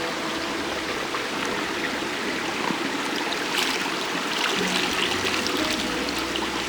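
Steady rushing of running water, like a small stream, with a brief stretch of brighter hiss about halfway through.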